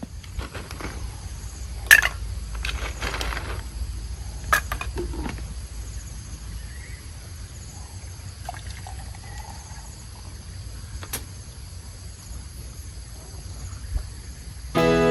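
Water pouring briefly, among a few sharp clicks and knocks of handled gear, over faint insect chirring and a low rumble.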